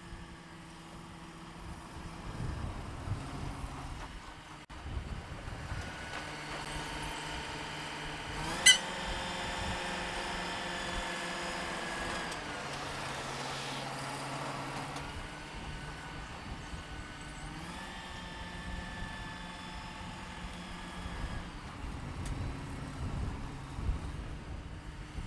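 Diesel-electric locomotive engines running as the consist creeps along at low speed, the engine note rising and falling twice as the throttle is opened and eased back. A single sharp bang comes about nine seconds in.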